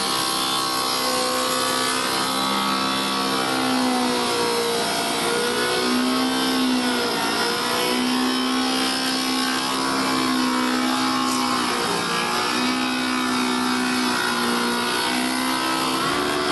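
Spindle moulder running and cutting a profile into a wooden workpiece: a steady machine whine over the hiss of cutting, its pitch sagging briefly a few times as the cutter takes the wood.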